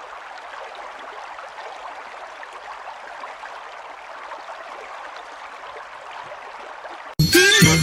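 Steady hiss of rain falling, with a fine patter. About seven seconds in it cuts off abruptly and loud children's music with jingling bells begins.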